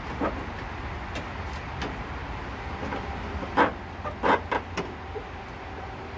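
A handful of short knocks and clicks of plastic and metal as a radiator is worked up out of its mounts by hand, the loudest a little past halfway, over a steady low hum.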